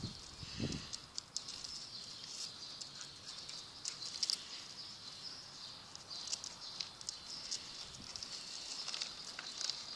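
Dogs' claws clicking and pattering irregularly on concrete as several dogs walk and turn about, over a steady faint high-pitched hiss.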